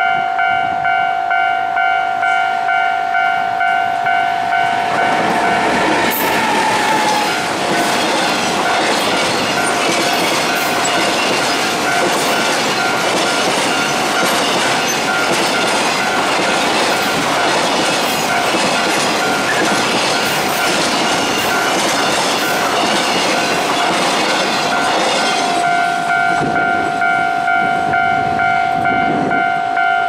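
Japanese level-crossing alarm bell sounding in a steady two-tone ding, about two strikes a second. From about five seconds in, a freight train of container wagons passes close by at speed, its wheels rattling and clacking over the rails and all but covering the bell, which comes through clearly again once the train has gone by about five seconds before the end.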